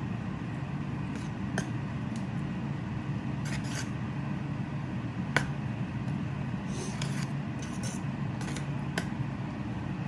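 Pot of curry with coconut milk heating on the stove as it comes to the boil: a steady low hum with scattered light clicks and ticks, the sharpest about five seconds in.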